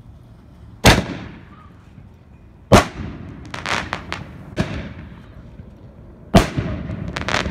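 World Class Excalibur canister shell firing: four very loud, sharp bangs, about a second in, near three seconds, near five seconds and after six seconds, each with a long fading echo. Between and after them come clusters of smaller crackling reports from the bursting stars.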